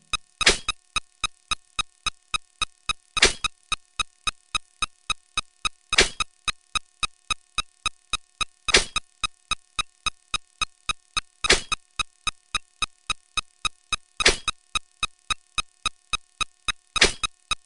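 Rapid, evenly spaced electronic ticks, about four a second, with a much louder stroke about every two and three-quarter seconds: sped-up counting sound effects.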